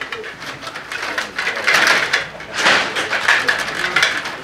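Stiga table hockey game in play: the control rods being pushed, pulled and spun, the plastic players clattering and the puck knocking, in a rapid run of clicks and rattles that gets louder around two and three seconds in.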